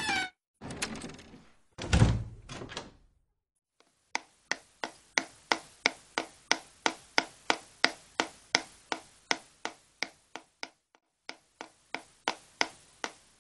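A couple of thuds, then a long run of evenly spaced sharp knocks, about three a second, that pause briefly near the end and then start again.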